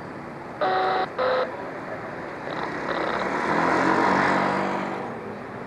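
Two short horn honks, then PCC streetcar #1704 rolling past close by, its running noise swelling to a peak and fading as it goes by.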